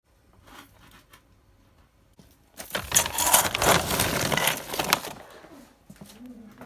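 Dry dog kibble poured from a plastic sack into a stainless steel bowl: after some light rustling of the bag, a dense rattle of hard pieces hitting metal for about two seconds, tailing off as the pour ends.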